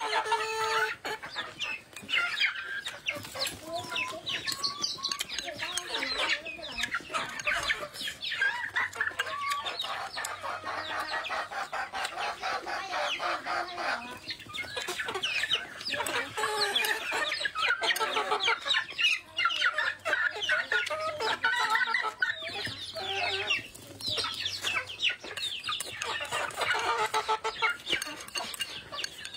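Chickens clucking almost continuously, with close-up chewing and slurping of food mixed in.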